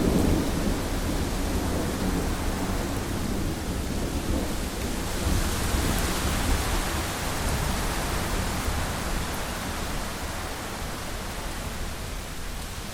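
Rolling thunder over steady heavy rain: the low rumble is loudest at the start and fades away, leaving the even hiss of rain.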